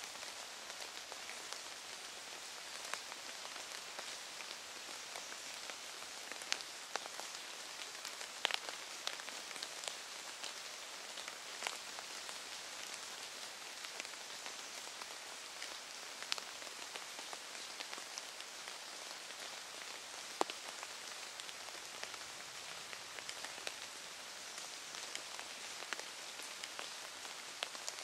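Steady rain pattering on wet leaf litter, with scattered sharper drops striking close by.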